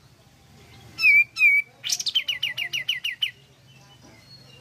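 Olive-winged bulbul (kapas tembak) singing. It gives two loud down-slurred whistles about a second in, then a fast run of about ten short falling notes, roughly seven a second.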